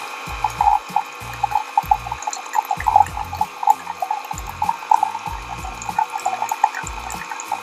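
Brewed coffee pouring in a thin continuous stream from a Keurig K-Mini into a ceramic mug, with an irregular trickling splash.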